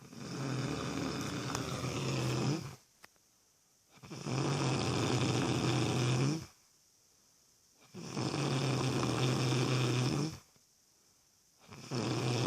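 Loud snoring: a long, steady, low snore about every four seconds, each lasting about two seconds, with quiet gaps between; the fourth snore begins near the end.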